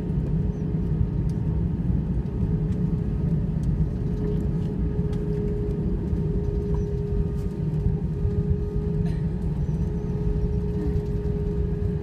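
Cabin noise of an Airbus A320 rolling on the ground after landing: a steady low rumble of engines and wheels with a constant hum above it.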